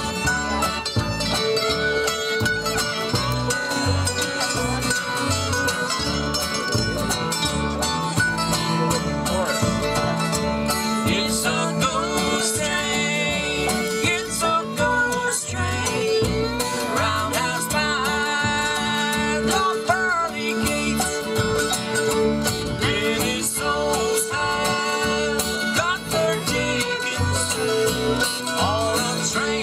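Bluegrass band playing live: five-string banjo, acoustic guitar, upright bass, mandolin and fiddle, over a steady bass pulse.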